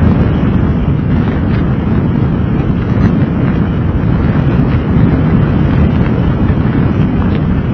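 Steady, loud rumble of a car driving along a road, with wind buffeting the microphone over tyre and road noise.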